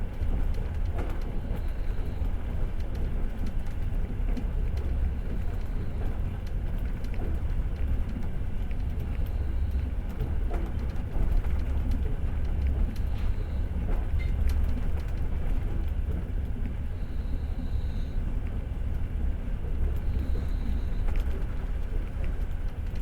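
Passenger train rolling along the track: a steady low rumble of the wheels on the rails, with faint scattered clicks and brief high squeaks.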